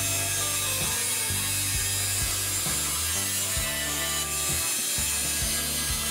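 Benchtop band saw running and cutting plywood, the piece being fed and turned against the blade to cut a curve.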